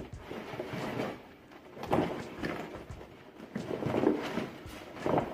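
Rustling and bumping of a dive bag as an underwater camera housing is pushed and settled inside it, in a few irregular bursts.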